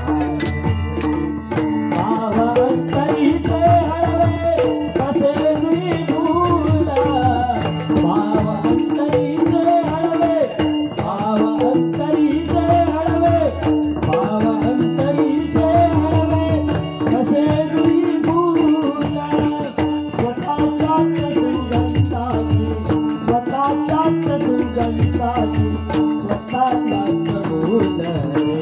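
Fast dholki drumming with harmonium: a held harmonium note under a wandering melody, with dense, rapid drum strokes. A bright jingling percussion joins near the end.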